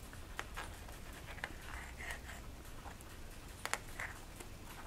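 Quiet handling sounds of a 77 mm circular polarizing filter being fitted onto the front of a camera lens: a few light clicks, two of them close together about three quarters of the way in, and soft rustling between them.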